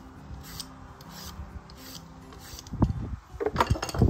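Vegetable peeler scraping down a carrot in short, regular strokes, about one every two-thirds of a second. After about three seconds, louder bumping and rustling as the carrot ribbons are pushed together by hand on a wooden cutting board.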